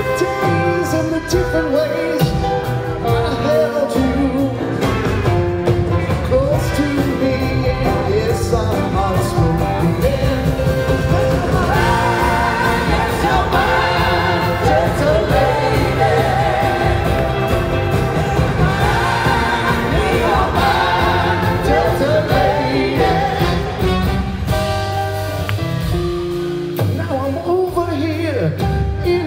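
Live rock band playing a song, with a sung lead vocal and backing singers over electric guitars, bass and drums, heard from the audience in a theatre.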